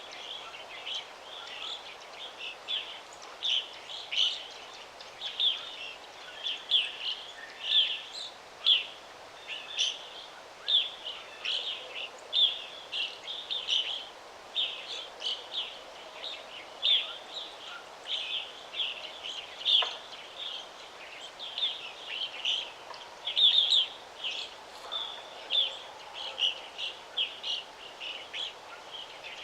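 Birds chirping in a dense, continuous chorus of short, high, quick calls that overlap, over a soft steady background hiss.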